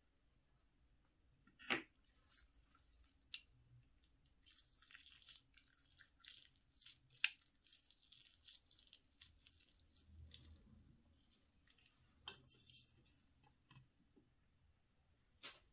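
Clear slime full of beads and sequins squeezed from a plastic piping bag into a glass bowl and pressed by hand: soft wet squishing with many small crackling ticks. Two sharp clicks stand out, one about two seconds in and a louder one near the middle.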